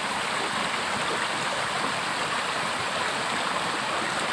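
Steady rushing of flowing water, as in a stream swollen after heavy rain.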